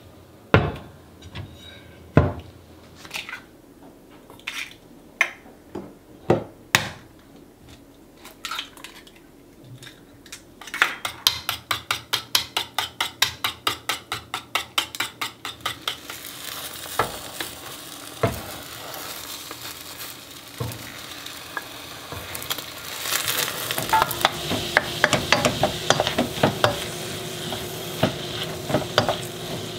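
Scattered knocks and clinks of kitchenware, then a utensil beating quickly against a stainless steel mixing bowl, about five strokes a second. From about halfway a hiss of frying rises and grows louder, with a spatula scraping as rice and sausage are stir-fried in a frying pan.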